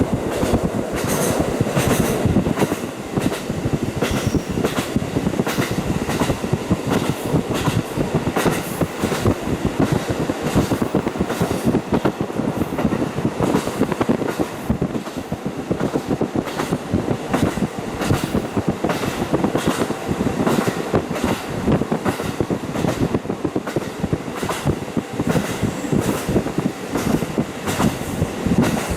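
KiHa 40 diesel railcar running along the line, heard through a fully open window: a steady rumble of running noise with repeated clacks of the wheels over the rail joints.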